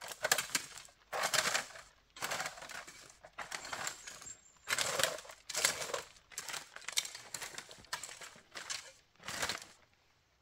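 A hand hoe chopping and scraping dry soil strewn with dead leaves and twigs, in irregular strokes about once a second.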